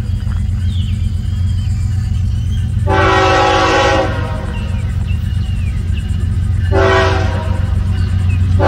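Florida East Coast Railway diesel locomotive sounding its multi-tone air horn for a grade crossing as it approaches: a blast of about a second near the middle, then another starting near the end and still held, over the steady low rumble of the train. Faint bird chirps come between the blasts.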